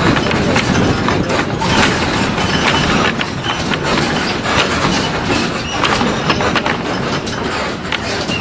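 Inside a moving MSRTC state transport bus: steady engine and road noise, with frequent rattles and knocks from the bus body and windows.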